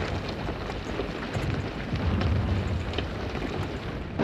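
Continuous rumble of an artillery bombardment, heavy and low with crackle over it, swelling louder a couple of times.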